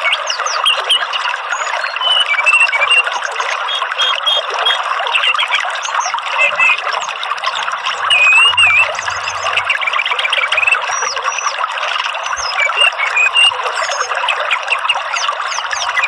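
Orange-headed thrush song, short whistled phrases and quick up-and-down glides, over a steady rushing background of running water.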